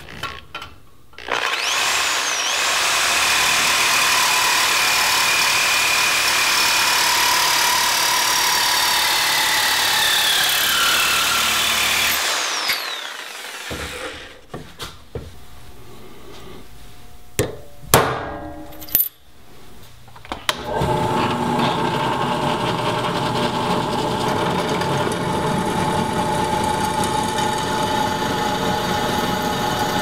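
A reciprocating saw cutting an eighth-inch scrap metal plate, running steadily with shifting whines for about eleven seconds before it stops. Then a few sharp metallic taps as a centre punch marks the cut piece, and from about twenty seconds in a drill press running steadily as it bores through the piece.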